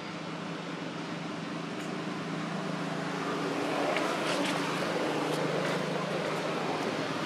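A steady low motor drone under a rushing hiss, getting somewhat louder about halfway through, with a few short clicks near the middle.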